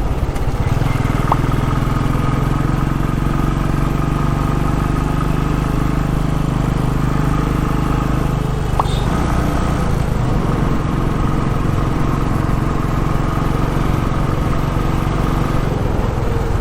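Royal Enfield Classic 350's single-cylinder engine running steadily while riding. The engine note shifts briefly about eight or nine seconds in, as if the throttle eases or a gear changes.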